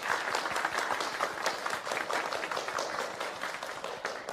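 A small group applauding: many pairs of hands clapping at once in a steady, dense patter.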